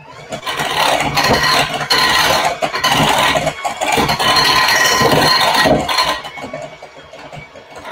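Electric mixer running with its beaters churning a thick batter of cream cheese, salad dressing and crushed pineapple. It starts just after the beginning and stops about six seconds in.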